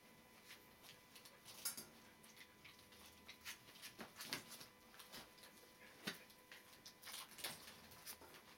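Three-week-old Border Collie puppies moving about on fleece bedding: faint, irregular small clicks and scuffs of paws and bodies.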